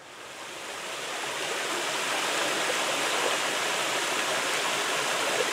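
A small stream running and spilling in little falls over flat rock ledges: a steady rush of water that fades in over the first two seconds.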